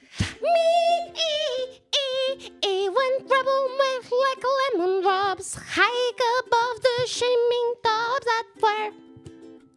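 A high voice singing a melody of held notes with a wavering vibrato, the notes sliding from one to the next.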